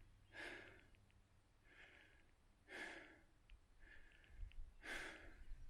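Faint heavy breathing of a person, breaths following one another about every two seconds, some with a slight whistle.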